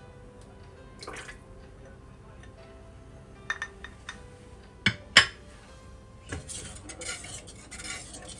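Kitchenware knocking against a large stainless steel mixing bowl: a few light clinks, then two sharp knocks about five seconds in, the loudest sounds here. From about six seconds in, a metal utensil scrapes and clatters steadily around the steel bowl as the leche flan mixture is stirred.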